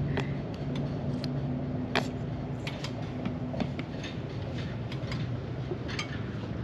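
Microfiber towel rubbing polish over a boat's window glass, giving scattered light clicks and creaks. A steady low hum runs underneath.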